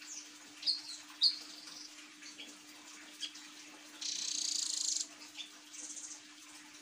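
Blue nuthatch calling: a few short, sharp, high chips in the first second and a half, then a loud, rapid buzzing trill of about a second starting about four seconds in, and a shorter, higher trill near the end.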